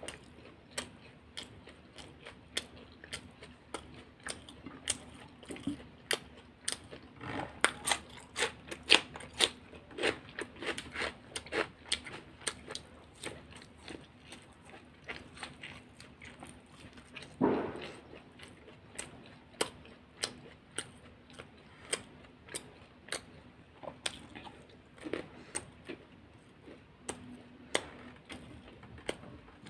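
Close-miked chewing and crunching of fried samosas and rolls with raw vegetables: a steady run of crisp, wet crunches and mouth clicks. It is busiest a quarter of the way in, with one louder bite a little past the middle.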